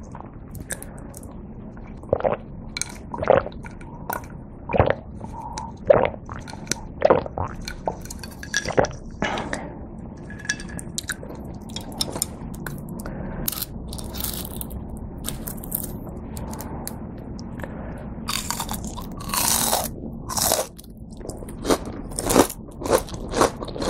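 Close-up eating sounds of a crispy breaded cheese pork cutlet (cheese tonkatsu): chewing at about one click a second, then the fried crust crackling as chopsticks tear a piece off, loudest about three-quarters of the way in, and crunchy bites near the end.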